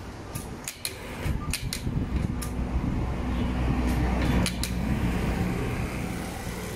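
Hikari H7900N single-needle industrial lockstitch sewing machine running with a steady low hum, with sharp clicks through the first couple of seconds and again around four seconds in. The machine is running normally again now that Error 22 has been cleared.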